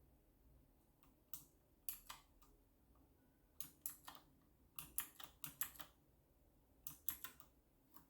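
Keys pressed on an RK Royal Kludge typewriter-style mechanical keyboard: sharp, separate clicky keystrokes in small irregular bunches of two to five, with short pauses between them.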